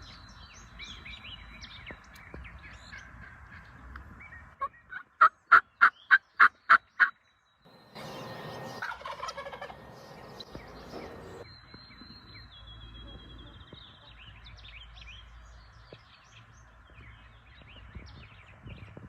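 A run of about eight loud, evenly spaced turkey yelps, roughly three a second, starting about five seconds in. A rougher, noisier sound lasting some three seconds follows, over small birds chirping faintly.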